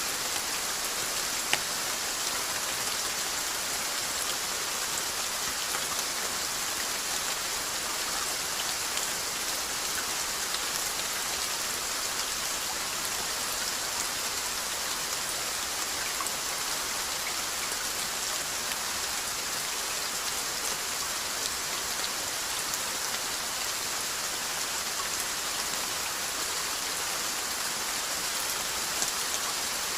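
Steady rain falling, an even hiss with scattered drop ticks, and no thunder.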